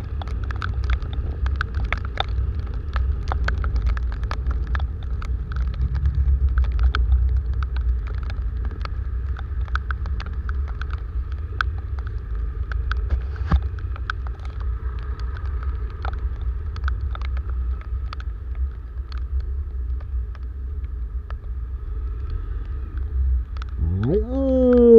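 Honda motorcycle riding slowly in heavy rain, heard from a camera on the bike: a steady low engine and wind rumble, with raindrops ticking on the camera throughout. Near the end the engine revs up sharply in a quick rising whine.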